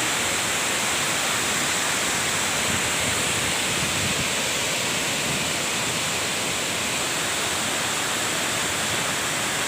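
Waterfall pouring, a loud, steady, unbroken rush of falling water.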